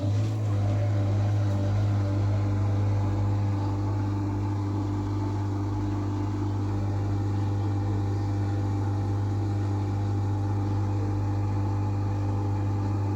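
Dishwasher running on its normal wash program: the pump motor holds a steady low hum with a faint wash of water behind it.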